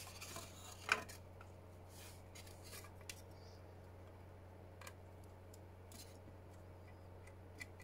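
Faint clicks and rubbing of a small plastic propeller being handled and pushed onto the wire nose pin of a foam toy glider, the clearest click about a second in, over a low steady hum.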